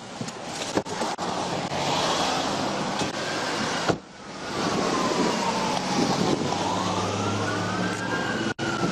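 Police car sirens wailing, slowly rising and falling in pitch, louder from about four seconds in, with two wails overlapping near the end.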